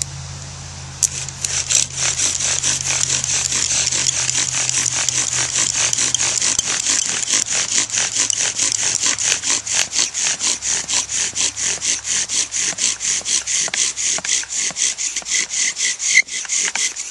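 Arborvitae bow drill spindle rasping in its hearth board under fast back-and-forth bow strokes, about four a second, starting about a second in. A few sharp squeaks come near the end, as the hearth begins to smoke on the way to an ember.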